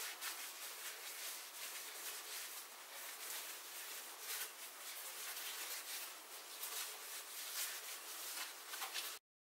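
Faint, irregular rubbing and swishing of a cloth wetted with mineral spirits wiped along a lacquered wooden cane, cleaning off dust and loose steel-wool bits between coats of lacquer. It cuts off suddenly near the end.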